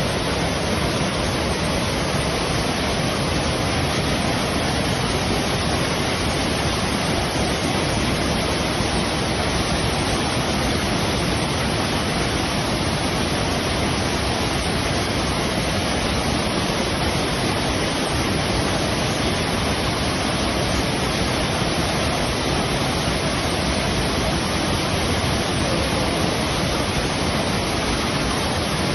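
A waterfall, its falling water making a steady, loud rush.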